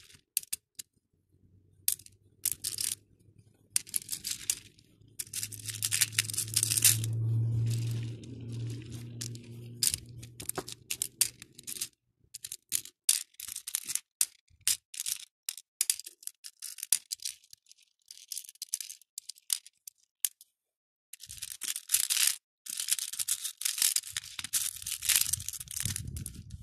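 Acrylic beads clicking and rattling as fingers pick through them and drop them into the compartments of a clear plastic bead tray, with bursts of scrabbling through piles of beads. A low steady hum runs underneath for the first half and cuts off abruptly.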